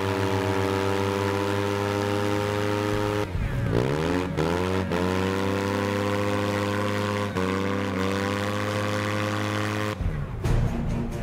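Motorcycle engine held at high revs while the rear tyre spins in a burnout. The revs dip and climb back about three seconds in, with a few brief dips later. About ten seconds in, music takes over.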